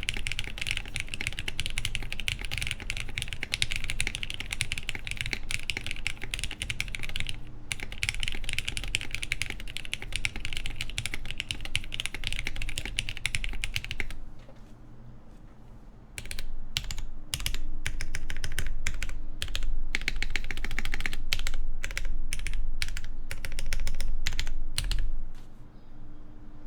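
Typing on a plateless Elvenmonster Martingale mechanical keyboard with lubed Cherry MX Black linear switches. It starts as fast, continuous typing with a brief break. About halfway through, after a short lull, it turns into slower, separate key presses with deeper thocks.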